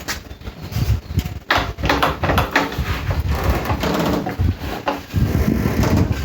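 Irregular knocks, clunks and rustling from parts and packaging being handled, with several sharp knocks in quick succession.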